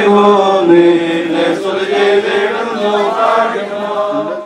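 Malayalam Christian funeral hymn chanted over a microphone, the voices holding long, steady notes and stopping abruptly near the end.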